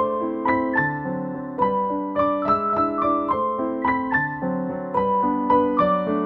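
Background piano music, single notes and chords struck at an even, unhurried pace.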